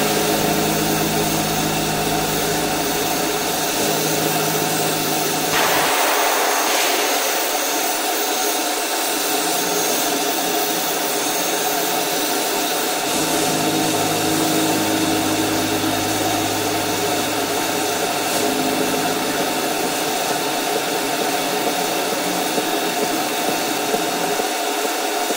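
Belt grinder running steadily while a steel knife blade is held against the abrasive belt and ground: a continuous grinding hiss over the motor's steady hum, a little louder about six seconds in.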